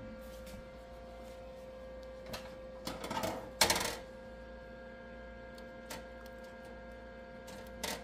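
Light metallic clinks and rattles of the oven's wire racks as the jerky on them is handled, with a louder rattle about three to four seconds in, over a steady hum.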